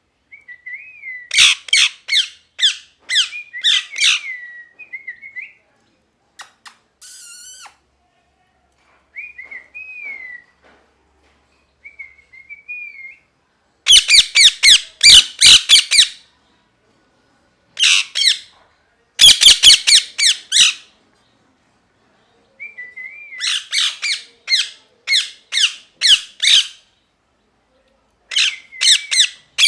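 Ringneck parrot screeching in bouts of rapid, harsh calls, several a second, with short, soft, wavering whistles between the bouts. The loudest bouts come about halfway through.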